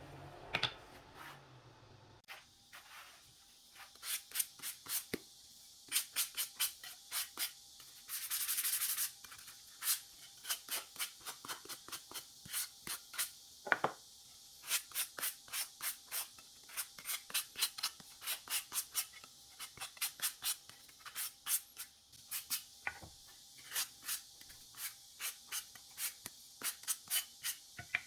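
Hand sanding of pine wood pieces with sandpaper: short rubbing strokes, about two to three a second, with one longer stroke about eight seconds in.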